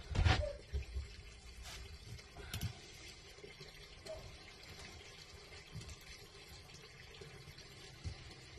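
A filleting knife cutting along a fish's backbone: faint slicing and scraping, with a couple of short, sharper scrapes in the first three seconds.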